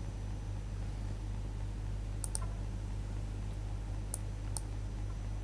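Computer mouse clicks: two close together about two seconds in and two more about four seconds in, over a steady low electrical hum.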